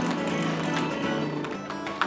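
Guitar-led acoustic pop-rock music, chords played steadily.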